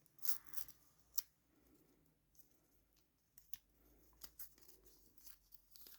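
Faint handling of small paper and plastic packaging: a few scattered clicks and light rustles, most of them in the first second or so.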